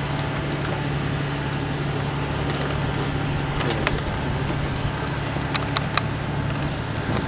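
An engine running steadily with a constant low hum, under wind noise on the microphone, with a handful of sharp wooden-sounding knocks a few seconds in.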